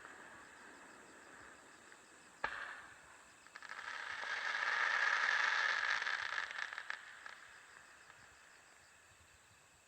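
Fireworks: a single sharp bang about two and a half seconds in, then a dense crackle of many small pops that swells for about three seconds and fades away. Insects chirp faintly underneath.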